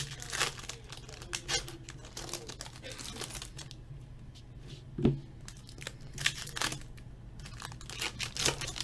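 Hockey card packaging being crinkled and torn open by hand, in short rustling bursts, with a single knock about five seconds in.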